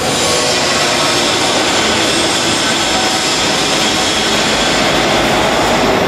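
Large industrial oven installation running: a loud, steady rushing machine noise.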